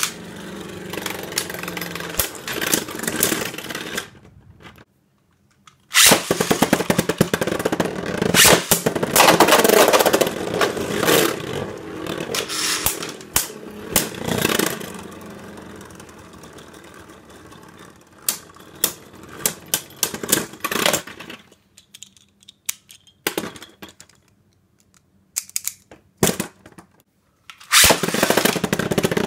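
Buster Xcalibur and Vise Leopard Beyblade Burst tops spinning and clashing in a plastic B-09 stadium: a steady whirr of the tops on the plastic floor, broken by sharp clicks as they strike each other and the wall. The sound stops briefly about five seconds in and comes back loud. It is mostly quiet with scattered clicks for several seconds before starting up loud again near the end.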